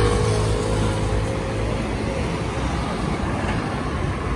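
Road traffic passing close: a motor scooter's engine note fading away over the first couple of seconds as it goes by, then engine and tyre noise of a car passing near the end.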